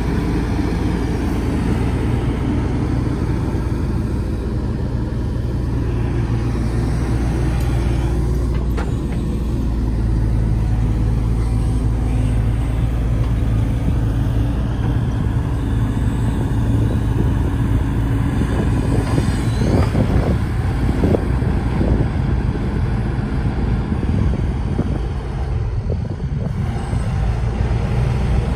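Hitachi ZX130-5N excavator's diesel engine running steadily under hydraulic load as the boom, arm and bucket are worked, its level swelling a little now and then.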